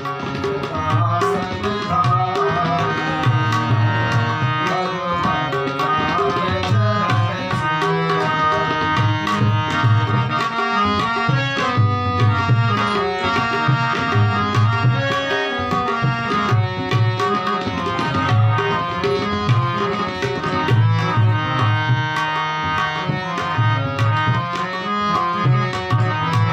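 Instrumental interlude of a Hindu devotional bhajan: tabla playing a steady rhythm under sustained melody notes, without singing.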